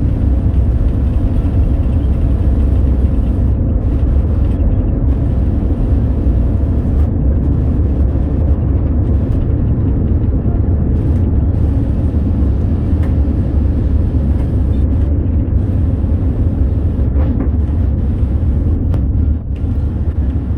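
Boeing 787 jet engines during takeoff: a loud, steady low rumble.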